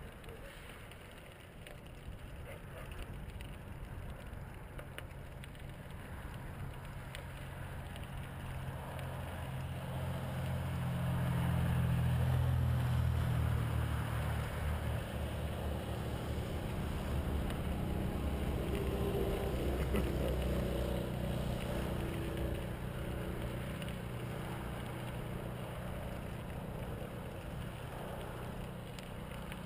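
Ride noise from a bicycle-mounted camera on a gravel trail: tyre rumble and wind, with a low steady drone that swells to loudest about twelve seconds in and then slowly eases.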